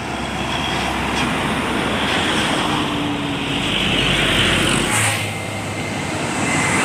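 Road traffic with large Hino tanker trucks driving past: engine and tyre noise. The sound changes abruptly about five seconds in, as one passing truck gives way to another approaching.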